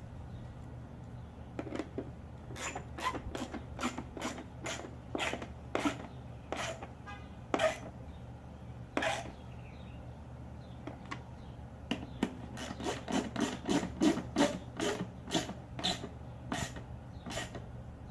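Tail light mounting bolts being tightened with a hand tool, most likely a ratchet: a run of sharp clicks, two or three a second, stopping for a few seconds about halfway through and then starting again.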